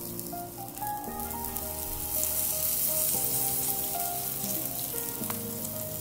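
Butter-coated hamburger buns sizzling in a hot cast iron skillet as they are laid cut side down; the sizzle grows louder about two seconds in. Background music with sustained notes plays under it.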